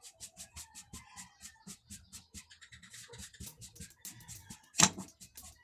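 Quick, even scratching strokes, about five a second, with one louder scrape about five seconds in.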